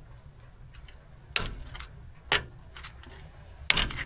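Sharp metallic clinks and knocks of hand tools against steel suspension parts during work on a lower ball joint. The first comes about a second and a half in and another about a second later, with a quick double near the end.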